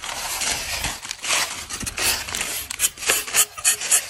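Rubber-tapping knife shaving a thin strip of bark from a rubber tree, a dry rasping scrape of the blade through the bark. The scrapes are longer at first, then come as short, even strokes about three a second near the end.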